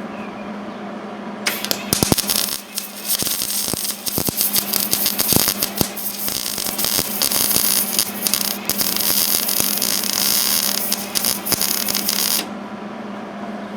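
Wire-feed welder arc welding sheet-metal truck bed panels: a loud crackling, sputtering arc starts about a second and a half in and runs in a few stretches with short breaks until about a second before the end, over a steady hum from the machine.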